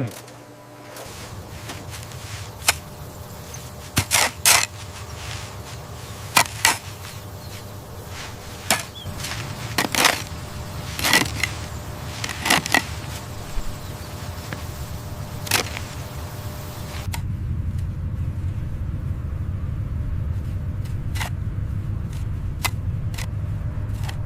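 Machinery running with a steady low hum and sharp clicks and clacks at uneven intervals. About seventeen seconds in the sound changes to a louder low hum with only a few faint clicks.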